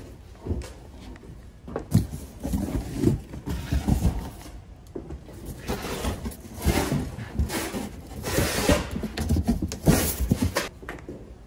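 Cardboard boxes being handled and shifted: irregular knocks and thuds of cardboard, then several longer scraping swishes of cardboard sliding against cardboard in the second half.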